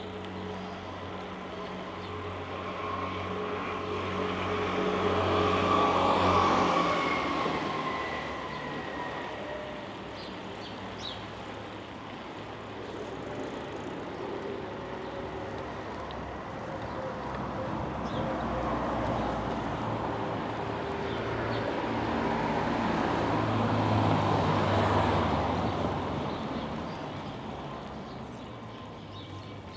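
Two motor vehicles pass close by, one about six seconds in and another around twenty-five seconds in. Each one's engine and tyre noise swells and then fades, and the first drops in pitch as it goes by.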